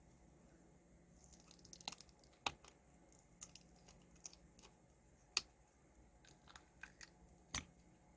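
Faint, scattered small clicks and taps of resin-craft tools and materials being handled, with the sharpest ticks about two and a half seconds and five and a half seconds in.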